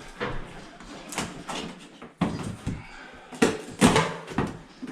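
Vinyl floor planks being pulled up and handled: a rapid series of sharp knocks and clatters, several close together in the second half.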